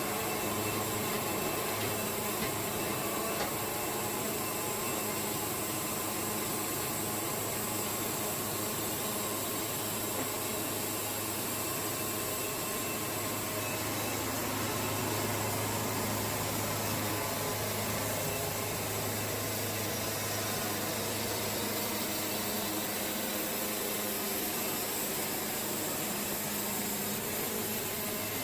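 Portable band sawmill running steadily, its engine humming while the blade cuts through a cedar log.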